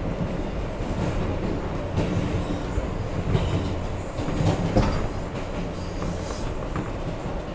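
Subway train running on the track, heard from inside the car: a steady rumble of wheels on rail with the click of rail joints and a brief, faint wheel squeal about six seconds in.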